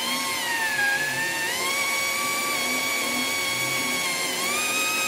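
Electric drill motor running with a steady whine while its bit bores slowly through an oiled iron threaded rod. The pitch sags briefly about a second in and rises slightly near the end.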